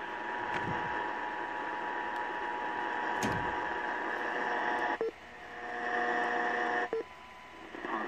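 RadioShack Public Alert radio on AM, hissing with static under a steady whistle. About five seconds in it clicks and changes to a different set of steady whistling tones, and it clicks again near the end as the radio is tuned from one AM station to another.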